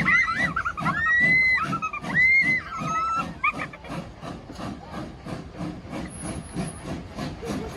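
Steam train pulling out of a station: a rhythmic beat about three times a second runs throughout, with high squeals rising and falling over the first three or so seconds.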